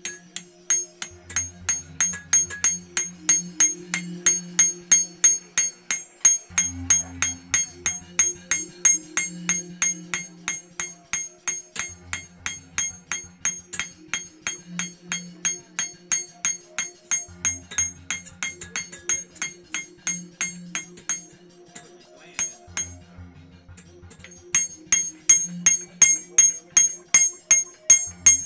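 Hand hammer striking a red-hot steel knife blade on an anvil, about three to four blows a second, each with a high ring from the anvil. The blows stop for about two seconds roughly three-quarters of the way through, then start again. Background music with a repeating bass line plays underneath.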